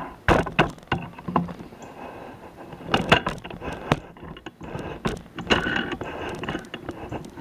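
Irregular knocks, clatter and scraping from a metal gutter bracket and rain gutter being handled and fitted together.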